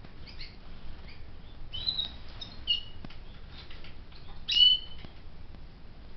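Pet canaries chirping: scattered short, high calls, several with a quick downward slide, the loudest about four and a half seconds in.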